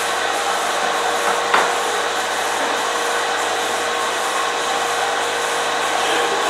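Electric honey extractor running with a steady motor hum and whirr, with one short knock about a second and a half in.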